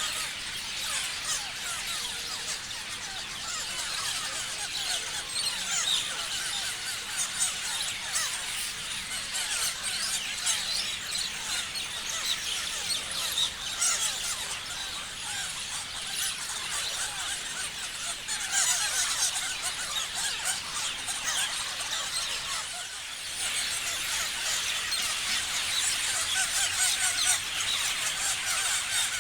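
A flock of parrots chirping together in a dense, continuous chorus of overlapping high calls, thinning briefly about three-quarters of the way through.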